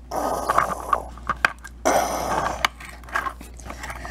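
Plastic toy excavator being worked by hand, its bucket scraping and clicking: two scrapes of under a second each, one at the start and one about two seconds in, with small clicks and knocks between.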